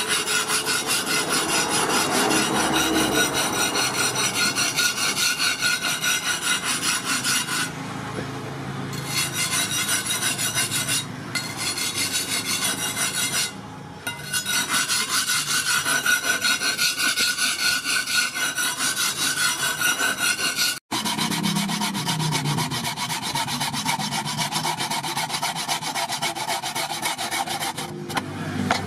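Freshly forged steel digging blade, made from a disc plough, scraped rapidly back and forth across a sharpening block in steady strokes. About two-thirds of the way through, this gives way to a handsaw cutting through a wooden tool handle.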